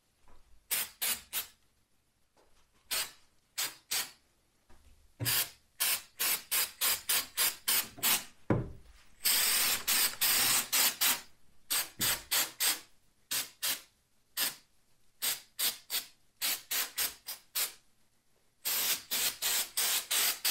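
Aerosol can of speckled texture spray paint being sprayed in many short, quick puffs, a few a second, with one longer unbroken spray about halfway through.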